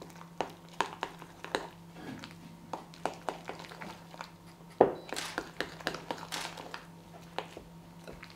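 A metal utensil stirring wet, sloppy gluten-free pizza dough in a glass bowl: irregular clicks of metal against glass, about two or three a second, with one louder knock about five seconds in.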